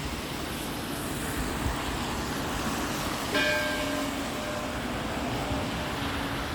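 Church bell tolling slowly: one strike about halfway through, its ringing hum dying away slowly, over a steady rushing background noise.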